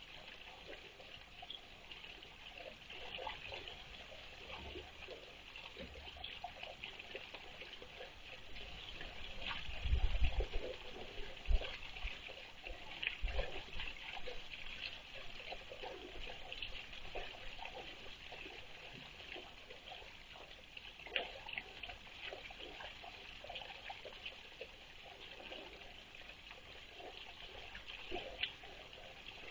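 Water trickling steadily into a small garden pond, with a few low thumps about ten to twelve seconds in.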